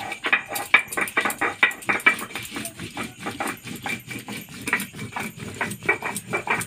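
Stone roller rocked and pressed on a flat grinding stone (sil-batta), crushing garlic cloves and whole spices into masala. The stone knocks and scrapes on stone in a fast, even rhythm of about four or five strokes a second.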